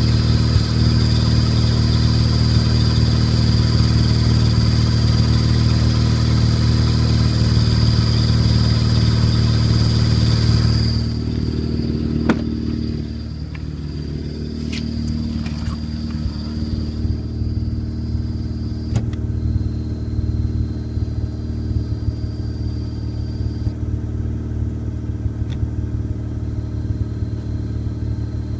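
Mazda RX-8 rotary engine idling in neutral with a steady high-pitched chirp from the clutch area, which has appeared since a new clutch kit, bearings and flywheel were fitted and which the owner suspects comes from a bad clutch fork. About 11 seconds in the overall sound drops and the chirp carries on weaker, cutting out and returning a few times.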